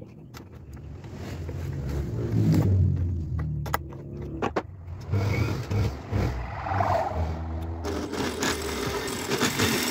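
Juicer motor driving a homemade mini lathe. It speeds up between about one and two and a half seconds in, then runs with a hum that rises and falls, with several sharp clicks along the way. A harsher hiss joins it about eight seconds in.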